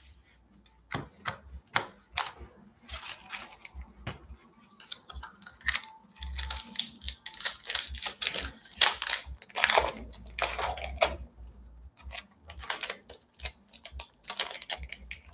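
A foil booster-pack wrapper being crinkled and torn open by hand, making irregular crackles. There are a few separate crackles at first, then a dense run of crinkling through the middle and another burst near the end.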